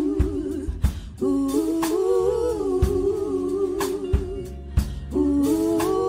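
Live soul band music: held chords over a slow beat with drum hits about once a second, and a woman singing into a close-held microphone without clear words.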